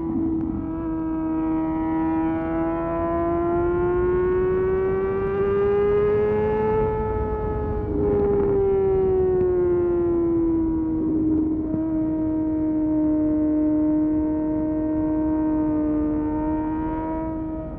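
2022 Kawasaki ZX-6R's 636 cc inline-four engine running at high revs with a sustained, siren-like whine; the pitch climbs slowly to a peak about seven seconds in, eases back down and then holds steady.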